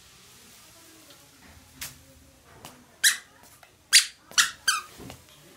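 A toddler's squeaker sandals squeaking with each step: a fainter squeak near two seconds in, then four loud, sharp squeaks close together in the second half.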